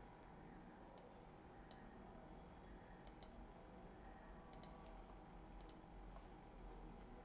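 Faint computer mouse clicks against near-silent room tone: two single clicks about a second apart, then three quick double clicks over the next few seconds.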